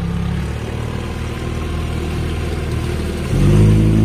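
Small passenger motorboat's engine running under way, with water and wind noise. After a less steady stretch, about three seconds in it picks up and runs louder with a steady hum.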